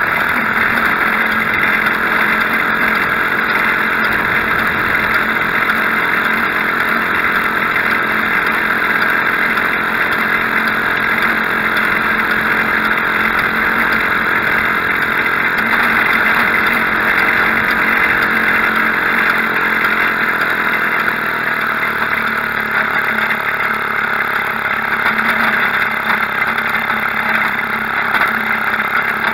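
Maytag Model 72 twin-cylinder two-stroke washing-machine engine running steadily on a homemade motor bicycle under way, heard close up. About three-quarters of the way through its note drops as the bike slows.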